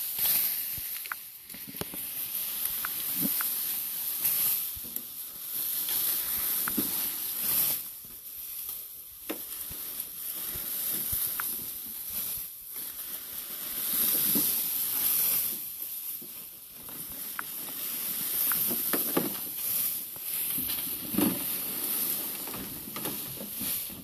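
Rustling of long cut grass with scattered small crunches and clicks, as cattle graze and tear at a pile of fresh feed grass.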